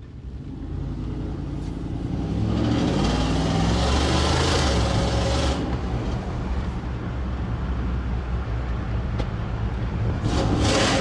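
Infiniti QX56 SUV engine accelerating: its pitch climbs for a few seconds, drops as it shifts up, then runs steadily. A louder rush of noise comes near the end.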